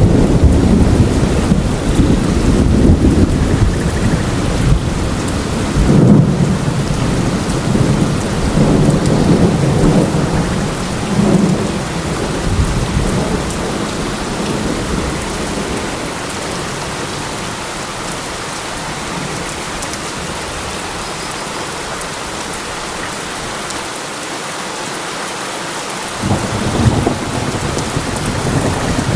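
Steady heavy rain in a thunderstorm, with rolling thunder rumbling low through the first half, dying away, then a fresh rumble of thunder starting near the end.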